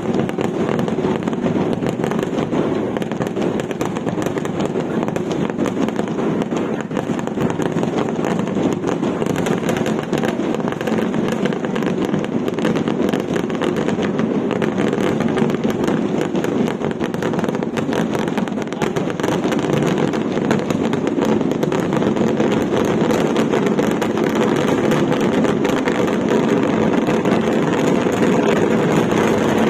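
Dense, unbroken barrage of firecrackers going off in rapid succession, a continuous crackling rattle that grows slightly louder toward the end.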